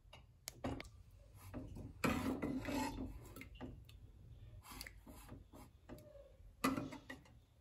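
A metal ladle scraping and knocking against the inside of an aluminium pressure cooker pot full of potato curry, in several short rasping scrapes, the longest about two seconds in.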